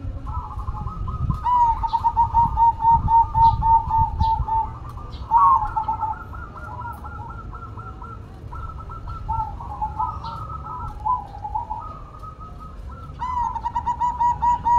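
Zebra dove (perkutut) cooing: long runs of quick, evenly repeated coo notes, then more broken phrases, with a new run starting near the end.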